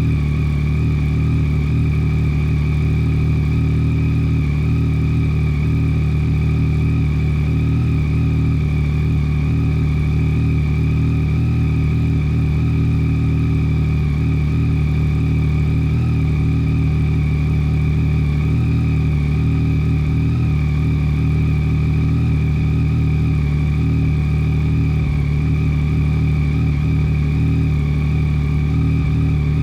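2022 Yamaha Tracer 9 GT's 890 cc three-cylinder engine idling steadily through an Akrapovic full exhaust with the baffle removed, warming up after a cold start.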